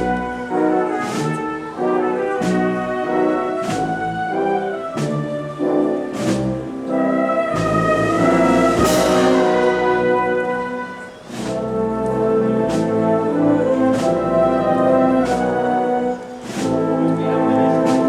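Spanish marching wind band (banda de música) playing a slow processional march, with brass carrying the tune over a drum beat about every second and a quarter. A cymbal crash comes near the middle.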